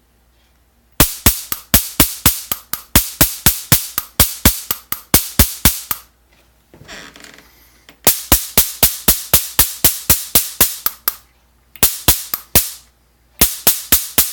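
Stun rifle prop firing its zap effect: rapid sharp cracks at about five a second, in four bursts of varying length, the first and longest about five seconds. A brief hiss sounds between the first two bursts.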